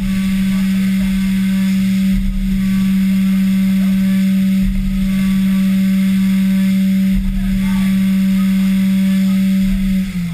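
Haas VF-3 CNC mill's spindle running at a steady high pitch as its end mill cuts aluminum under flood coolant, with a hiss of coolant spray and a brief dip in the sound about every two and a half seconds. Near the end the pitch begins to fall as the spindle slows.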